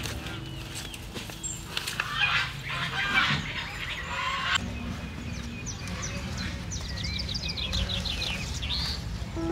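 Birds calling in a garden, with a busy stretch of calls about two seconds in and a rapid run of high repeated notes near the end.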